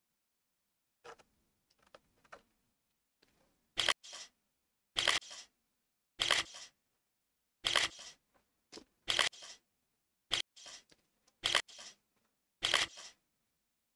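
Camera shutter firing again and again, taking photos: about eight shots roughly one and a quarter seconds apart, starting about four seconds in, each a sharp click followed by a softer second click. A few fainter clicks come before them.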